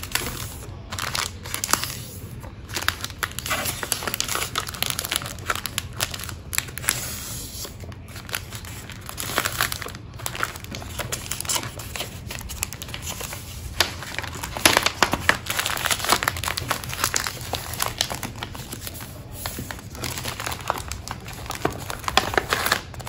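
Sheet of printed wrapping paper crinkling and rustling as it is folded by hand around a small package, with irregular crackles throughout.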